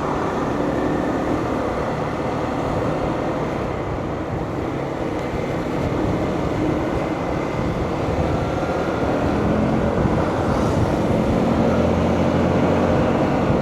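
Steady engine and road noise from a vehicle cruising along a road, with a faint engine hum that shifts a little in pitch.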